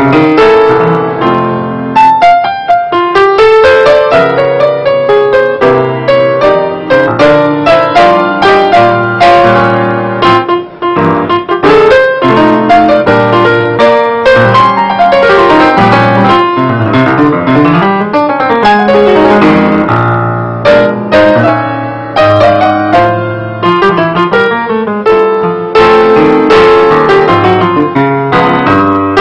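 Grand piano played solo: a busy passage of quick note runs over sustained chords.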